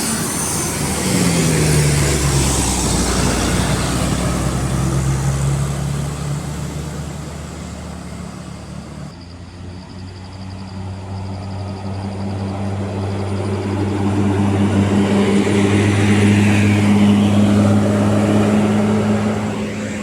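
Diesel bus engines driving past on an uphill road: one bus passes with its engine note dropping about a second in, then another heavy engine approaches, grows louder to a peak a few seconds before the end and eases off.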